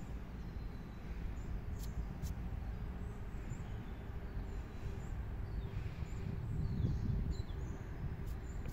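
Outdoor background of a steady low rumble, with small birds chirping now and then in short high calls.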